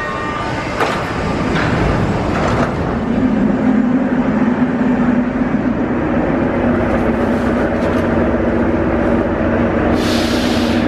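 Russian-built 81-series metro train (81-572/81-573 cars) standing at a station with its on-board equipment running in a steady hum, with a few knocks in the first three seconds. A sudden loud hiss starts near the end.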